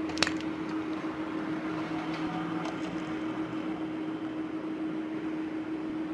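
Faint sticky handling sounds of a hand kneading and stretching soft glue-and-detergent slime in a glass bowl, with a sharp click just after the start. A steady low hum and hiss run underneath throughout.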